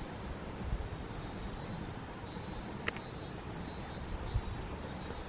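Outdoor background noise: a steady low rumble with faint, high chirping in short repeated bursts, and a single sharp click about three seconds in.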